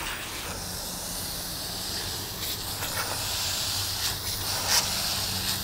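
Garden hose spray nozzle hissing steadily as water is sprayed onto and into the pleats of a pool cartridge filter, rinsing out the dirt.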